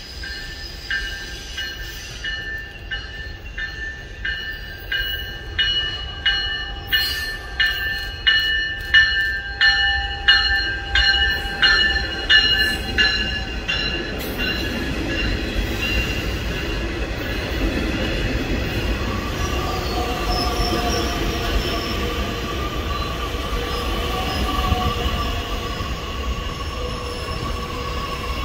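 Metra Electric bilevel electric commuter train pulling in and rolling past: wheels clacking over rail joints about one and a half times a second, growing louder, with high-pitched wheel squeal. About halfway through the clacks give way to a steady rumble with lingering ringing tones as the cars roll by.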